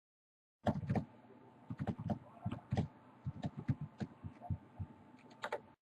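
Faint, irregular light taps and clicks, a couple of dozen of them over about five seconds, starting just under a second in and stopping shortly before the end.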